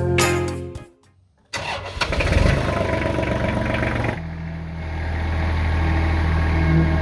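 Intro music cuts off in the first second. After a brief gap, an engine is cranked and catches, then settles from about four seconds in to a steady low idle.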